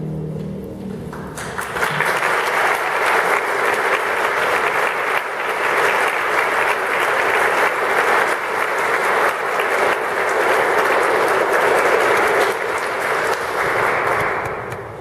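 The last notes of a harp ensemble ring out and fade, then an audience applauds. The applause starts about a second in, holds steady and tapers off near the end.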